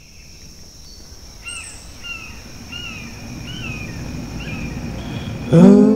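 Outdoor bird ambience fading in, with one bird giving a short curving call about five times over a steady high thin tone. Near the end, music comes in suddenly with a loud held chord.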